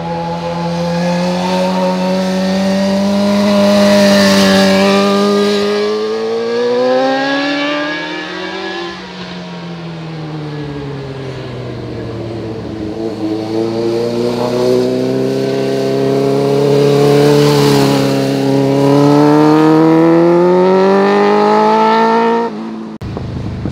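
Motorcycle engine pulling hard under acceleration, its pitch climbing slowly over several seconds, dropping back about nine seconds in, then climbing again. It cuts off suddenly near the end.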